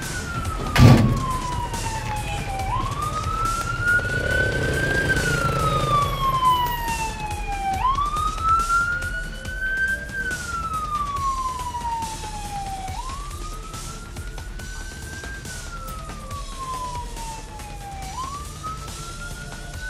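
Vehicle siren on a military convoy pickup, sounding a slow wail: each cycle rises quickly, then slides slowly back down, repeating about every five seconds. A single sharp thump about a second in is the loudest sound.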